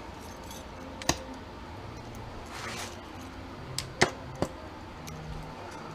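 Small metal screws clicking as they are handled and dropped: a single sharp click about a second in, then three quick clicks around four seconds in.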